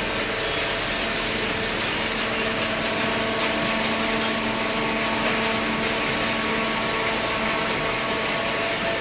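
Automatic baler for plastic and cardboard running: a steady machine hum with several fixed tones over a broad hiss.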